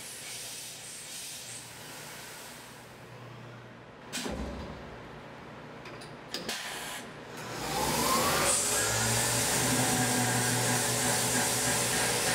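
Tormach 1100M CNC mill: a faint hiss dies away, then a clunk and a couple of clicks as a tool holder is changed by hand in the spindle. About two-thirds of the way in, the spindle spins up with a rising whine and runs steadily under the hiss of the mist coolant spray.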